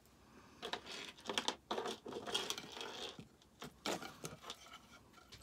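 Small metal jewelry pieces, a cut-up necklace among them, clinking and rustling as they are rummaged through and handled. The clinks come in a dense cluster through the first half, with a few more near the end.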